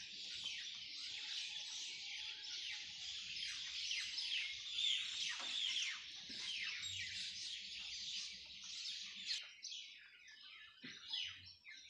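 Many small birds chirping at once: a dense chorus of quick, falling chirps that thins out near the end.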